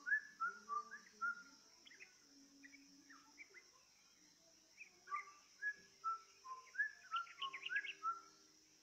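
Yellow-vented bulbul (trucukan) song: short, liquid whistled notes strung into quick bubbling phrases, one burst at the start and a longer one from about five seconds in, over a steady high hiss.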